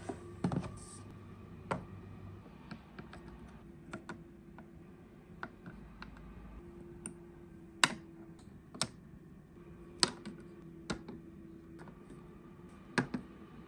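Scattered light clicks and taps, irregular and about one a second, as small objects are handled, over a faint steady hum.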